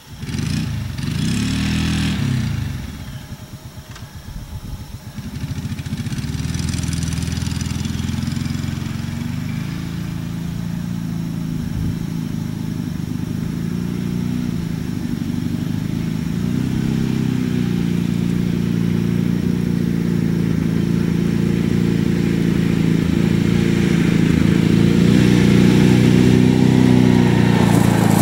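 A small engine starts abruptly, revs up and falls back in the first few seconds, then runs steadily with small changes in speed and slowly gets louder.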